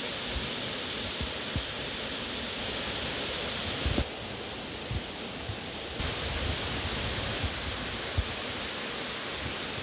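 Steady rush of waterfalls cascading down a cliff into a pool, with occasional low bumps of wind on the microphone.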